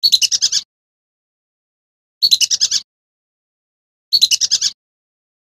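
Male lesser whistling duck calls from a lure recording: three quick runs of six or seven high whistled notes, each about half a second long, about two seconds apart.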